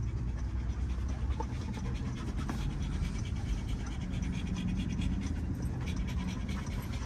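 Labrador panting steadily in a car, in even repeated breaths over a low steady hum.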